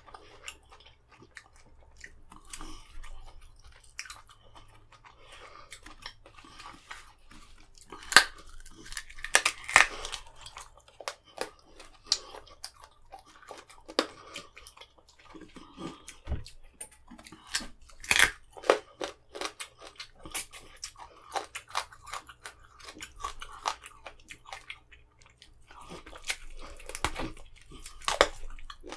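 Close-up chewing and biting on a bone-in piece of chicken, with irregular wet mouth sounds and crunches. A few sharp, loud crunches stand out, about eight, ten, eighteen and twenty-eight seconds in.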